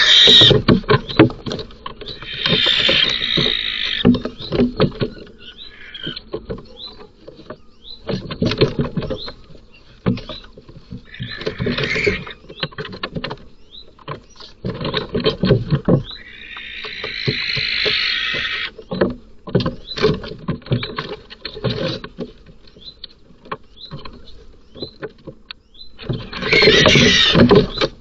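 Barn owls fighting inside a wooden nest box: repeated knocks, thumps and scuffling of wings and bodies against the box, broken by about four drawn-out hissing screeches, each a second or two long. This is the sound of an adult male barn owl attacking a chick that is defending itself.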